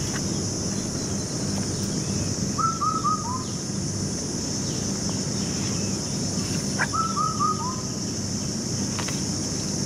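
A bird repeating the same short call about every four seconds: three quick notes and then a lower one. Under it is a steady high insect drone with a few faint clicks.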